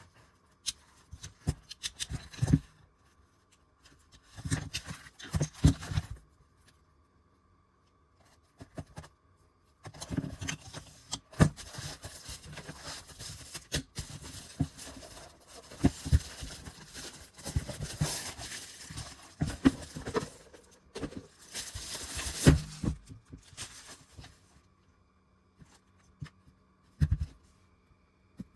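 Handling noises: rustling, scraping and sharp clicks and knocks in uneven bursts, with a couple of quiet pauses.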